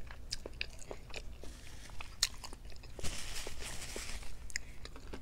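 Close-miked chewing of seafood-boil food, with many small wet mouth clicks and smacks, and a short stretch of hiss about three seconds in.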